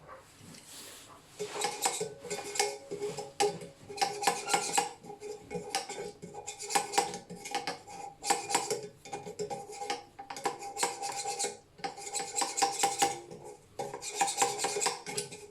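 A screwdriver scraping caked, sticky dust off the blades of a ventilation unit's drum-type fan impeller, in quick repeated strokes that start about a second and a half in. The metal blades ring with a clear tone under the strokes. The dirt on the blades is what made the fan motor hum.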